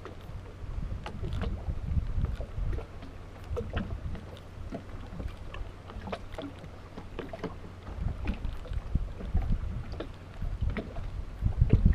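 Water lapping with irregular low rumbling surges, and scattered light clicks and ticks.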